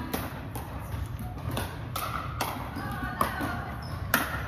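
Scattered sharp pops of pickleball paddles striking hard plastic balls and balls bouncing on a hardwood gym floor, the loudest a little past four seconds in, over a murmur of voices in a large hall.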